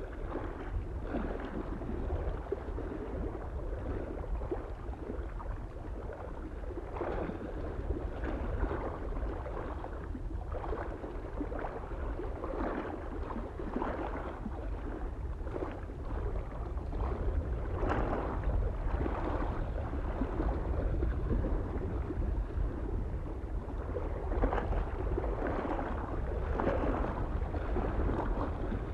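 Small waves lapping against a lake shore in irregular splashes, one every second or so, over a steady low rumble of wind on the microphone.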